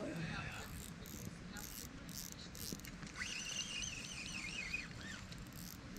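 Fishing reel and rod being handled, with a run of short mechanical clicks. About three seconds in, a high warbling tone starts, wavering quickly in pitch, and stops just before the end.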